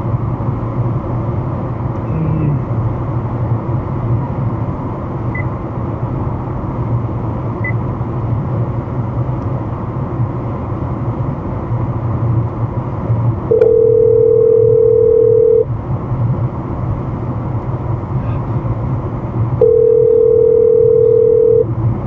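Steady road and engine noise inside a car cruising at highway speed, with two long electronic beeps of one steady pitch, each about two seconds, about six seconds apart, the first a little past halfway through.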